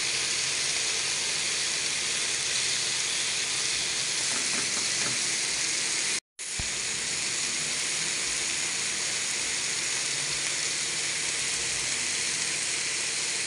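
Pork belly slices sizzling steadily on a hot grill pan. The sound cuts out for a moment about six seconds in, then resumes.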